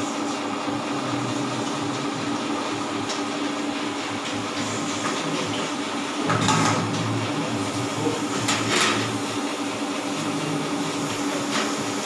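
Electric stand mixer running steadily with a low motor hum while whipping cream, with a couple of short louder noises about six and nine seconds in.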